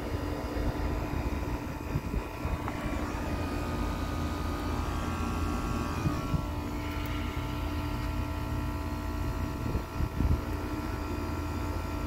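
Bryant Legacy Line 214DNA heat pump outdoor unit running a dry defrost, on a coil that was not frozen: the compressor hums steadily with several whining tones, and the tones shift about six seconds in. A couple of low thumps come near the end.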